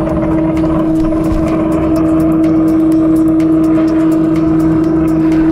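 Homemade CNC router making its first test run on G-code: a steady motor whine held at one pitch, which dips and climbs again at the very end.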